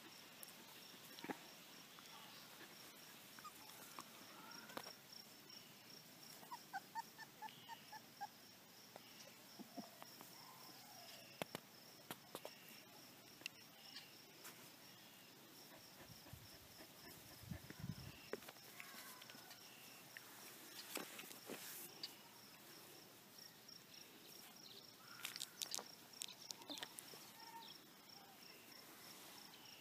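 Near silence with a faint, steady, high-pitched insect trill, scattered soft clicks and rustles, and a short run of faint squeaks about seven seconds in.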